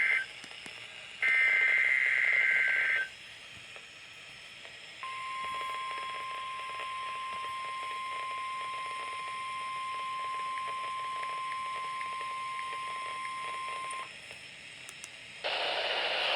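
NOAA Weather Radio required weekly test: the tail of one SAME digital header burst, then a second burst of about two seconds of two-tone warbling data screech. After a short pause comes the steady 1050 Hz warning alarm tone for about nine seconds, and near the end a loud rush of radio noise.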